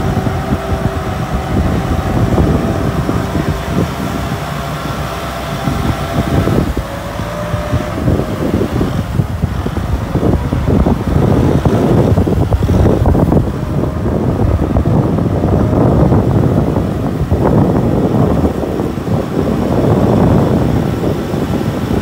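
Kubota tractor's diesel engine running steadily under load as it drags a loaded trailer through deep water, with a steady whine in the first several seconds and wind buffeting the microphone.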